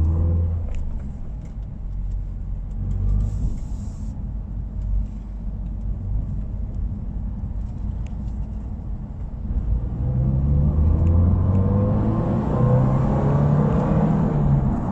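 Subaru WRX's flat-four exhaust, running low and steady, then rising in pitch and getting louder as the car accelerates from about ten seconds in.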